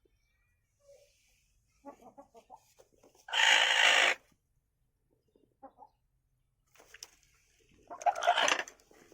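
Aseel chickens clucking softly, with two loud harsh squawks, one about three seconds in and one near the end.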